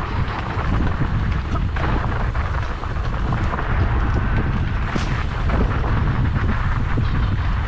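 Mountain bike riding fast down a rocky dirt singletrack: a steady low rumble of wind buffeting the camera microphone, with a dense rattle of clicks and knocks from the tyres and bike over stones and loose dirt.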